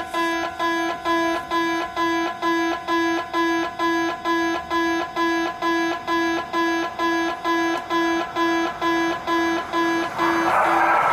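Japanese level-crossing warning bell dinging steadily about twice a second. In the last second a passing train's rushing noise swells up over it and becomes the loudest sound.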